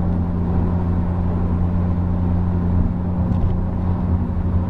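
Volkswagen Jetta TSI's turbocharged four-cylinder engine and tyres droning steadily, heard from inside the cabin at cruising speed.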